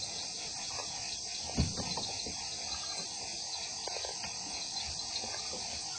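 Steady night chorus of insects such as crickets, a continuous high shrill hiss, with a few short low thumps, the loudest about one and a half seconds in.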